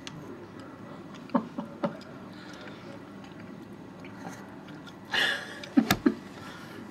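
Quiet room tone with a few small clicks, a short breathy rush of noise about five seconds in, and a sharp click just after it.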